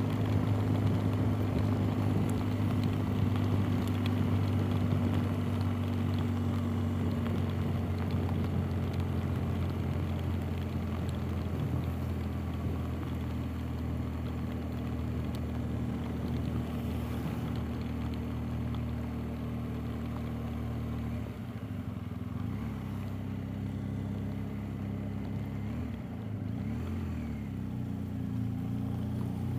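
BMW R 1250 GS Adventure's boxer-twin engine running at a steady cruise, with a rushing noise on the helmet-mounted camera. About two-thirds of the way through the engine note drops a little, and then its pitch rises and falls as the bike slows and picks up speed.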